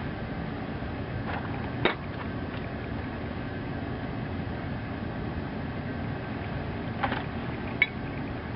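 Steady low background noise, like a fan or air conditioner running in the workshop. A few short clicks sound over it, two near the start and two near the end, as vise parts are handled.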